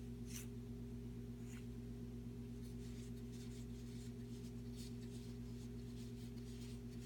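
Faint rustling and sliding of trading cards being flipped through by hand, over a steady low hum.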